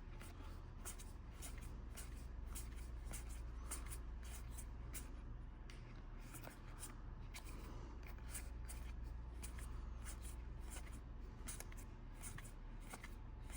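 Disney Lorcana trading cards being flipped through and sorted by hand: faint, quick, irregular card flicks and rustles.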